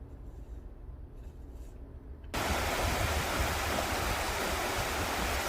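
Steady rushing of flowing water, as from a mountain stream or waterfall, cutting in suddenly about two seconds in after a faint low rumble.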